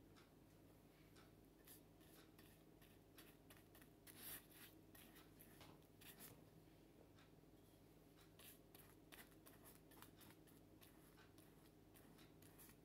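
Faint brushing and scratching of a paintbrush spreading Mod Podge over a painted terracotta pot, in short irregular strokes, over a faint steady hum.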